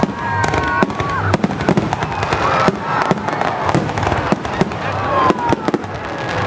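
Fireworks display: many sharp bangs and crackles in quick succession, with a few tones sliding in pitch.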